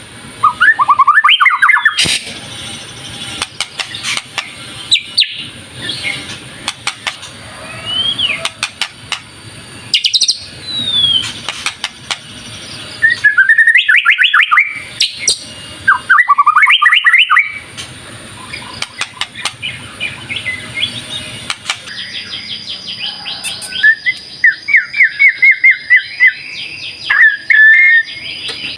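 White-rumped shama (murai batu) singing loudly in repeated bursts of varied phrases: rising and falling whistles and fast runs of short notes, with brief pauses between them. A thin steady high tone joins in during the last few seconds.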